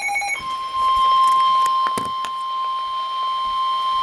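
Emergency weather alert tones over a radio. A buzzy electronic tone cuts off about half a second in and gives way to one steady, single-pitched alert tone that holds on, with a few clicks of static. The steady tone is the NOAA Weather Radio warning alarm tone that comes before a warning message.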